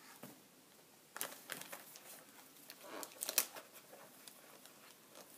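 Gift wrap crinkling and tearing as a small present is unwrapped by hand, in short sharp crackles that come thickest a little past the middle.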